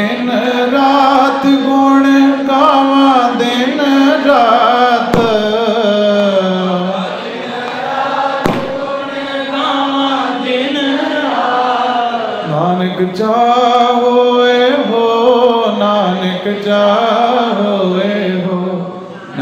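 Sikh kirtan music: a male voice sings a wordless melodic line with gliding pitch over a harmonium and keyboard. A drum gives a few sharp strokes.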